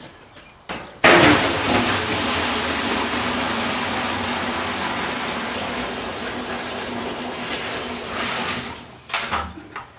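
Five gallons of water poured from a plastic bucket into a 55-gallon barrel, filling a sugar-syrup mixer. A steady splashing gush starts abruptly about a second in and slowly tapers off, followed by a few light knocks near the end.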